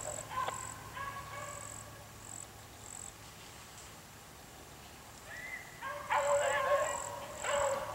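Deer-running hounds baying and howling: long held howls about a second in, a quieter stretch, then a run of wavering bays from about five seconds in to the end.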